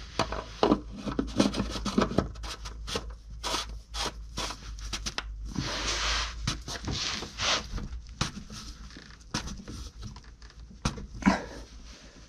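Oil filter housing cover with a new cartridge filter being pushed into the housing and screwed in by hand: irregular clicking, knocking and scraping of the cover and filter against the housing, with a sharp knock near the end.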